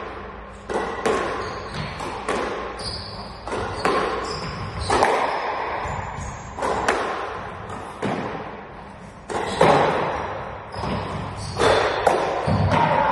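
Squash rally: the rubber ball struck by the rackets and smacking off the court walls, sharp echoing knocks about one or two a second. Short high squeaks of shoes on the court floor come between the strikes.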